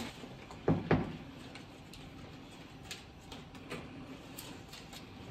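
A hotel room door being unlocked and opened: two short knocks a little under a second in, then a few faint clicks.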